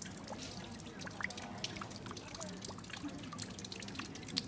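Fountain water trickling and dripping into a stone basin, with many small irregular splashes.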